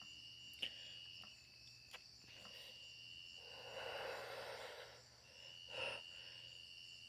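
Crickets trilling steadily and faintly, their high song briefly breaking off and resuming twice. A soft rushing swell rises and fades in the middle, with a few faint clicks.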